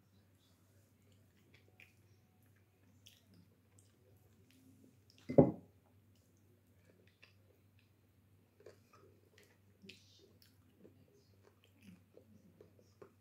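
Close-up chewing and mouth sounds of someone eating, with faint scattered clicks and smacks over a steady low hum. About five seconds in there is one short loud thump.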